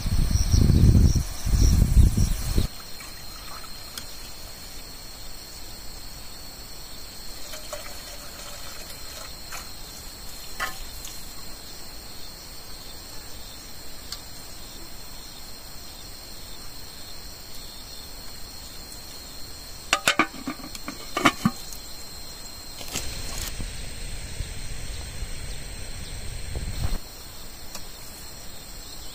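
Insects chirring in steady high tones, with wind rumbling on the microphone for the first couple of seconds. About twenty seconds in come a few light clinks of a metal pot, then a few seconds of water running from a garden tap.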